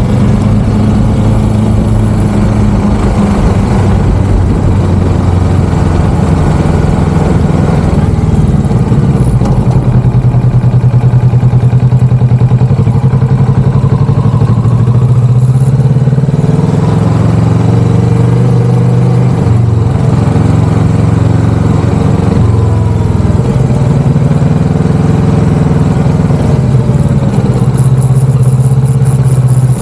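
Kawasaki Vulcan S 650's parallel-twin engine running loud and steady under a rider. Its pitch rises slowly and drops back a couple of times as the bike pulls and eases off.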